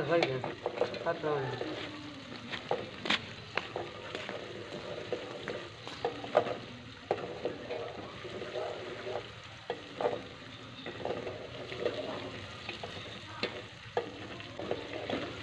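Meat and onions sizzling as they brown in a steel pot on a gas burner, with the irregular scrape and knock of a spoon stirring them against the pot.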